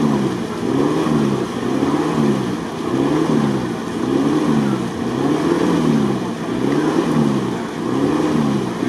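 Toyota Land Cruiser 70's engine revved up and down over and over, about once a second, as the truck rocks in deep mud trying to get free.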